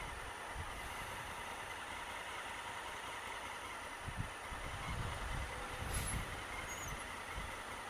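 Low rumble of idling traffic at a stop, swelling from about four seconds in as a coach bus's diesel engine pulls past close by, with a brief high hiss about six seconds in.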